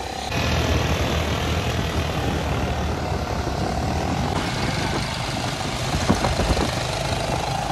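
250 cc motorcycle engine running steadily, with an even rushing noise over it.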